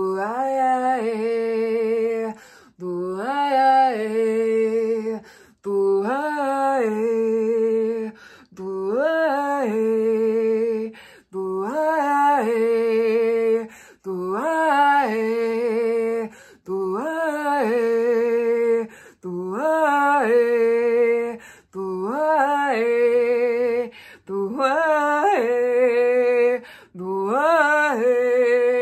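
A woman singing a wordless light-language chant: the same melodic phrase over and over, about every three seconds, each one gliding up and back down and then holding a steady note, with short pauses between.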